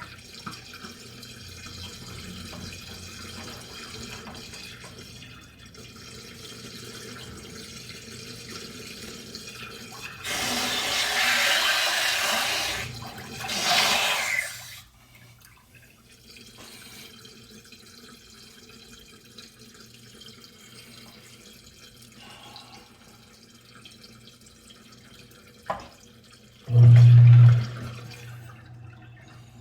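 Water rushing from a hose into a sink in two loud gushes about ten seconds in, over a faint steady hum: dirty water flushed out of an HVAC water strainer under pressure. Near the end there is a sharp click, then a short, loud low hum.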